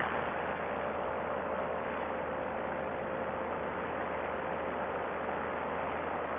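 Two-stroke paramotor engine and propeller running steadily in flight, a constant drone mixed with wind rush, heard from the pilot's position.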